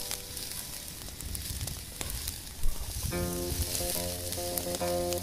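Food sizzling and popping in a pan over a wood-burning camp stove, with a single sharp knock a little before three seconds in. Background music comes in about three seconds in.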